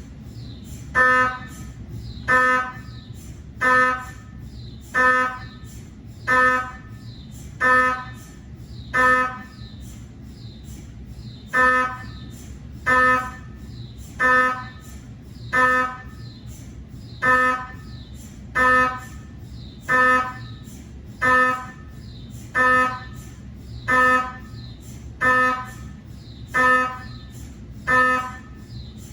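GE 3T TwinSpeed MRI scanner's gradient coils running a cardiac scan sequence: a loud, pitched buzzing tone in short bursts about one every 1.3 seconds, with a longer pause about ten seconds in. A steady low hum runs beneath.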